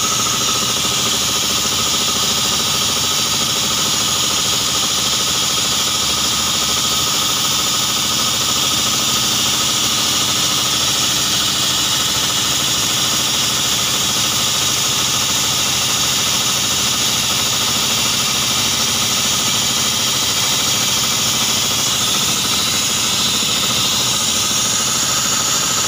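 Excavator engine and hydraulic rock drilling-and-splitting attachment working the rock: a steady, loud machine noise with a strong high hiss that does not let up.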